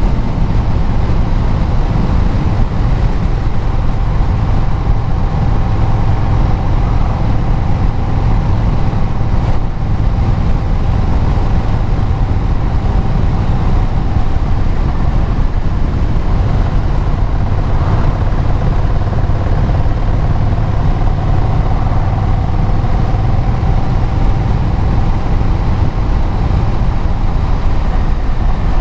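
Vehicle engine and exhaust running steadily under way, mixed with road and wind noise.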